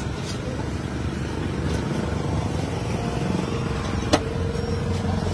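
Steady low motor-like rumble, with one sharp knock about four seconds in as a large knife cutting at a catla fish's head strikes the wet slab.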